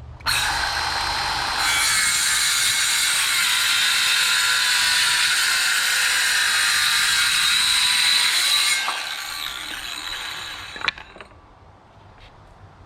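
Power saw cutting through wooden fence boards to trim them to length, removing the rotten ends. The saw runs loud and steady for about eight seconds, then winds down.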